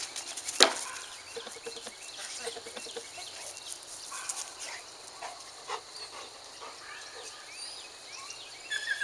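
Faint dog barks and yips scattered throughout, with a single sharp click about half a second in as the loudest sound.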